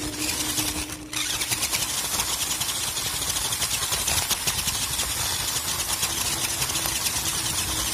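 An RC off-road truck's motor and geared drivetrain running under power over gravel, with a fast, steady mechanical rattle and a steady whine. The sound dips briefly about a second in.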